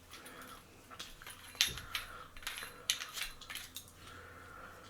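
Light metallic clicks and taps from handling lightsaber hilt parts and a copper shim washer: several sharp clicks spread over a few seconds, the loudest about one and a half seconds in.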